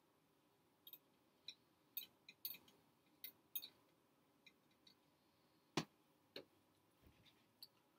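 Near silence broken by scattered faint, irregular clicks and ticks, with one louder knock about six seconds in.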